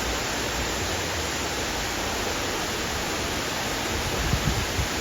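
Waterfall crashing into a pool: a steady, even rush of falling water, with some low rumbling in the last second.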